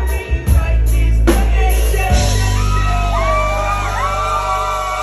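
Live band music played loud through a club PA: heavy bass and a few drum hits over the first second and a half, then held bass under a gliding high melody and a singer's voice.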